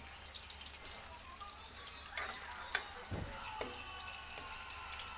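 Carrot cubes frying in oil in a steel wok, a steady light sizzle with fine crackles, with a few knocks of a spatula against the wok about three seconds in as they are stirred.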